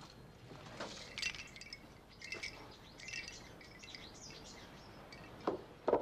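Small birds chirping and twittering in short high calls. A couple of short soft knocks come near the end, like steps on a garden path.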